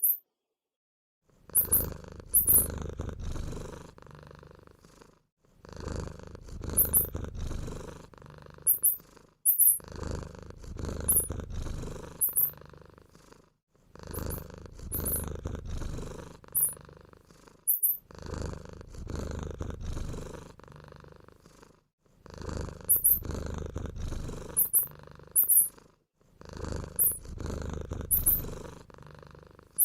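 Purring rumble coming in stretches of about four seconds with short gaps between them, with brief, very high-pitched squeaks dotted through, in the manner of mouse squeaks.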